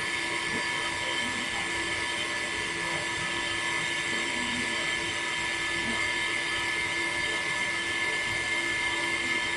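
Small DC mini water pump whining steadily as it pushes a thin stream of water, with water splashing onto the foam-covered toy tractors.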